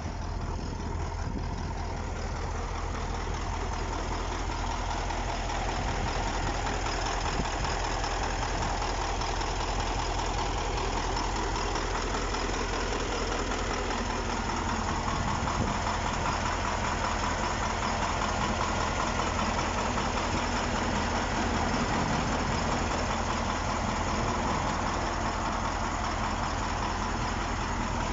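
KAMAZ-6520 truck's diesel engine idling steadily, freshly rebuilt after a major overhaul and being run in after its first start.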